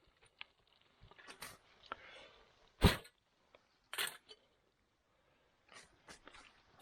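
A few short knocks, clinks and scrapes of a spoon against a small camping cook pot as food is served out, the loudest about three seconds in and another about a second later.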